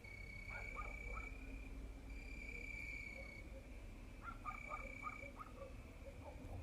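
Crickets chirring in steady high trills, each lasting about a second with short pauses between. Lower, quickly repeated calls come in twice, about half a second in and again around four seconds in, over a faint low rumble.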